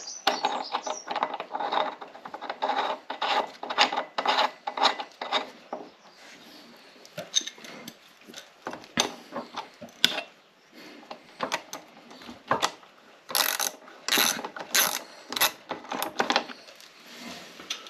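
Bursts of rapid ratcheting clicks and metallic clinks from a hand tool unscrewing the pedal and crank arm from an e-bike's crank axle.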